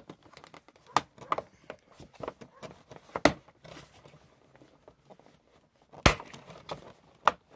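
Plastic console trim on a 2005 Ski-Doo GSX/REV snowmobile being handled and pressed into place: scattered light clicks and knocks, with two sharp, louder snaps about three and six seconds in.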